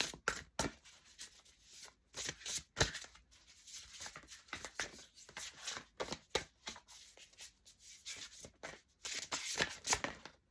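A deck of oracle cards being shuffled by hand: a steady run of irregular crisp flicks and rustles of card against card.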